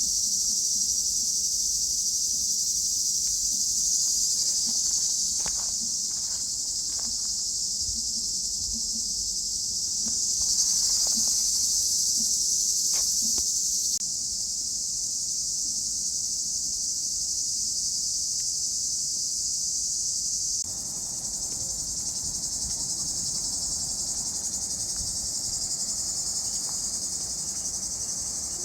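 Cicadas shrilling in a dense, continuous high-pitched chorus, with a few faint knocks in the first half.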